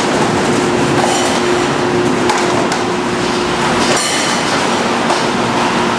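Avocado packing-line machinery and conveyors running with a steady hum, under irregular clattering knocks from plastic crates and fruit being handled.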